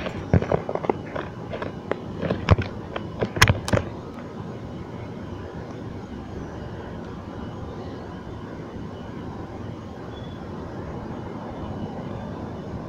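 A run of sharp clicks and pops over the first four seconds, the loudest two about three and a half seconds in. Then a steady outdoor background rumble.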